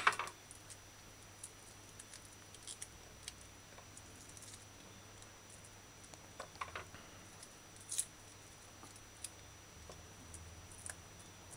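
Faint, scattered crackles and small clicks as hands pull the layers of a cut onion apart, with a slightly louder click about eight seconds in.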